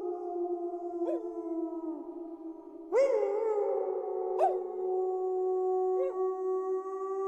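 Several wolves howling in chorus: long, overlapping held howls at different pitches, with a loud new howl breaking in about three seconds in and short rising cries cutting through now and then.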